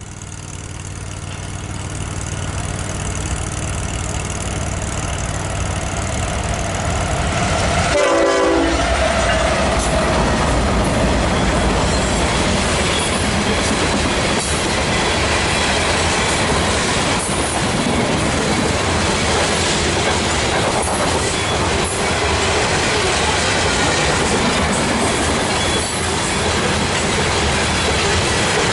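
A train approaching, getting louder with a steady engine drone, then a short horn blast about eight seconds in. After the horn the train passes with steady wheel-on-rail noise and scattered clicks.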